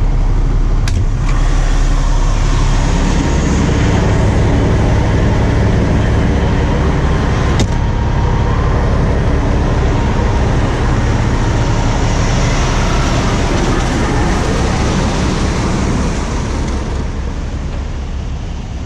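Highway traffic passing close by: a loud, steady low noise of vehicles going past. Two sharp clicks, about a second in and just before eight seconds. The noise eases off near the end.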